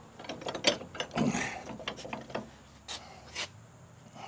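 Scattered metal clicks and knocks of hand tools working bushings into a truck's torque arm mount, with a short, louder, rougher stretch about a second in.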